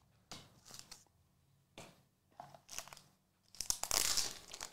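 Trading cards in clear plastic sleeves and holders rustling as they are lifted out of a box and handled: a few soft scuffs, then a denser crinkling of plastic near the end, the loudest part.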